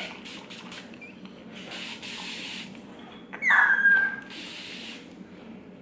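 Plastic trigger spray bottle misting water onto hair in several short spritzes. About three and a half seconds in comes a child's brief high squeal that falls in pitch.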